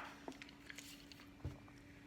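Near silence: room tone with a faint steady hum and a couple of soft clicks.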